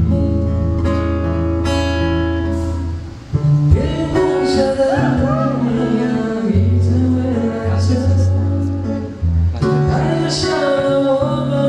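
Live band music: strummed acoustic guitar over a steady bass line, with a wavering, wordless singing voice coming in about four seconds in and again near the end.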